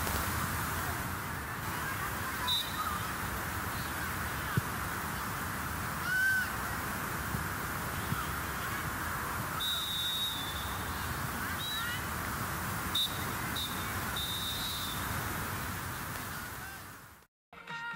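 Steady outdoor background noise at a football pitch, with a few short, high calls scattered through it, one arching call about six seconds in. The sound fades out to silence shortly before the end.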